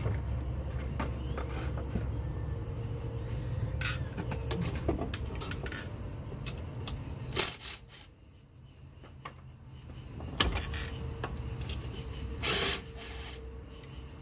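Short bursts from a cordless driver and sharp metal clicks as bolts are backed out of a jet pump housing, over a low steady hum that drops away about eight seconds in and then returns.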